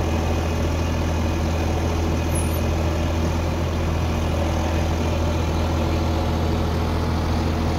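Atlas Copco dewatering pump's engine running steadily with a deep, even hum.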